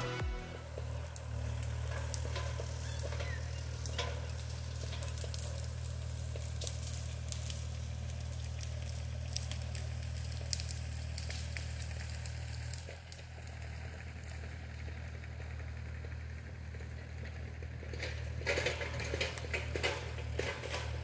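An engine running at a steady low drone, with scattered crackling and snapping over it that grows denser near the end.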